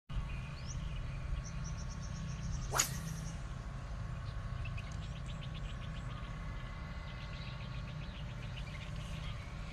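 Small birds chirping and insects calling in rapid pulsed trills, over a low steady rumble, with one short swish about three seconds in.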